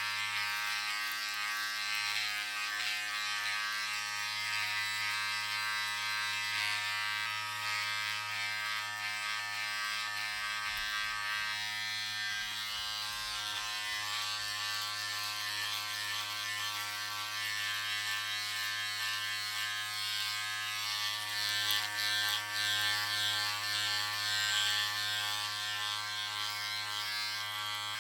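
Electric razor shaving, a steady buzzing hum with a fluctuating raspy hiss of the cutters on stubble over it.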